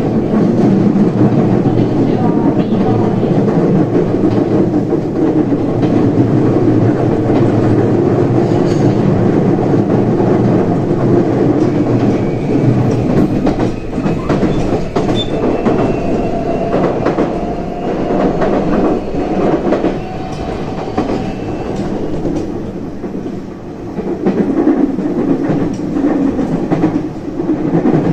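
JR 323 series electric train running between stations, heard on board: a steady rumble of wheels on rail with repeated clicks over rail joints. A faint high whine rises slightly in pitch from about twelve to twenty-two seconds in.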